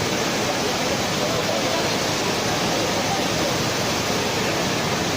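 Steady, unbroken rushing noise of blast furnace plant machinery running.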